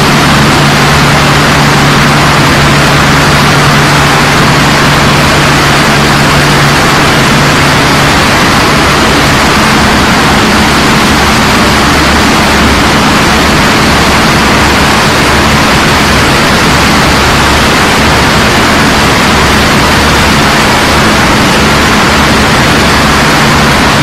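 Loud, steady din of heavy ore-processing machinery running: large ball mills and their electric drive motors, with a screw sand washer churning slurry. A low hum under the noise fades about eight seconds in, and a fainter, higher hum takes over.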